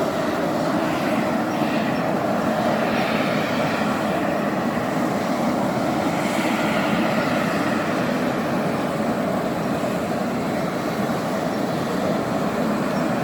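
Steady running noise of a vehicle in motion, even in level with no distinct events.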